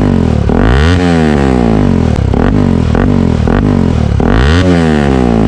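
Bajaj Pulsar RS 200 single-cylinder engine breathing through a Yoshimura R77 aftermarket exhaust, revved twice from idle, about a second in and again near the end, its pitch climbing quickly and falling back each time. A loud exhaust with plenty of bass.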